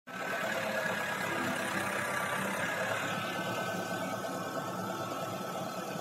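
Diesel engine of a telescopic handler running steadily at idle.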